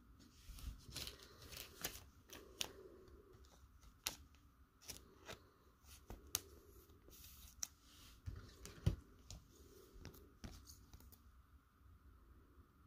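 Quiet handling of a trading card and clear plastic card sleeves: scattered light clicks and plastic rustles as the card is slid into a soft sleeve and a rigid top loader. A louder knock comes about nine seconds in.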